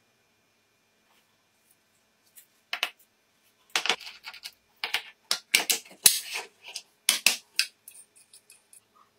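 An irregular run of sharp clicks and clacks of small hard parts being handled. It starts about two and a half seconds in, is busiest in the middle and thins out near the end.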